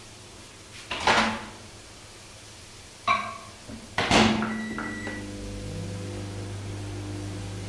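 Microwave oven being used: a clunk about a second in, a short beep at about three seconds, and another loud clunk, after which the oven starts running with a steady low electrical hum.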